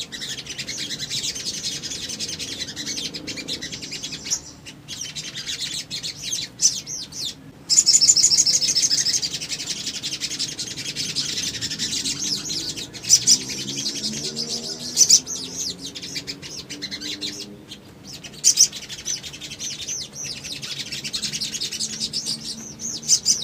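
Brown-throated sunbirds (sogok ontong) calling: rapid, high, sharp chirps and twitters, louder in spells about eight seconds in and again around thirteen to fifteen seconds.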